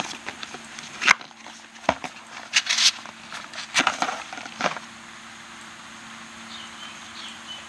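Cardboard gauge box being opened and its insert and gauge lifted out: a handful of sharp scrapes and crinkles in the first five seconds, then only a faint steady hum.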